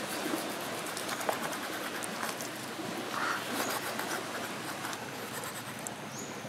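Knife blade scraping the charred skin off a fire-roasted sea cucumber: a run of quick, light scrapes over a steady background hiss.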